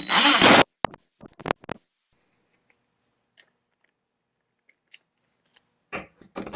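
Cordless drill/driver driving a screw into an aluminium saw guide, its motor whining, then stopping suddenly under a second in. A few sharp clicks of handling follow, then near-quiet until the drill starts up again near the end.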